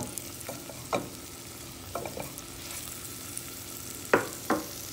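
A wooden spatula stirs diced potato, onion and spices in a nonstick pot, scraping the pan bottom in short strokes about once a second. The two loudest strokes come near the end. Under them is a faint steady sizzle of the food frying in oil.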